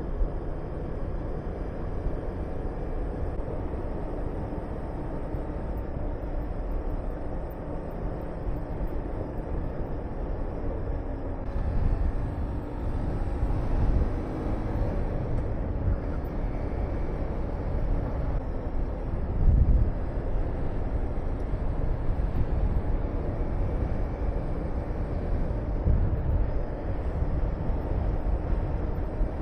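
Honda VTR250 V-twin engine running under way, with wind rushing over the microphone. Low gusts of wind buffeting swell several times, strongest about two-thirds of the way through.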